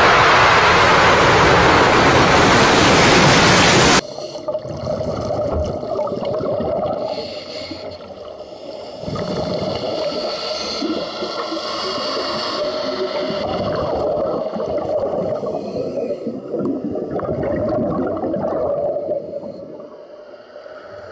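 Loud, steady roar of a blast and its falling water and debris, cut off sharply about four seconds in. Then muffled underwater sound recorded at a diver: bubbling from scuba exhalation over a steady hum.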